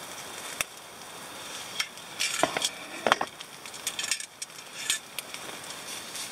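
Chicken sizzling on the wire grate of a shichirin charcoal grill, with the charcoal crackling and sharp clicks as chopsticks turn the pieces; a couple of louder clicks come between two and three seconds in.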